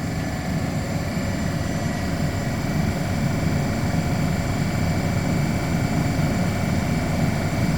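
Nardi CNG 2.8 gas compressor running steadily under load, building pressure toward its 3600 stop pressure. An even hum with a faint hiss, with no change in pitch or level.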